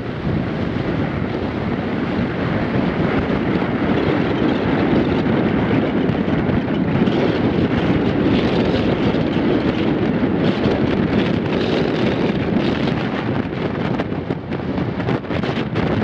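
Strong force-6 wind buffeting the camera microphone as a loud, steady rumble, with short crackles in the second half.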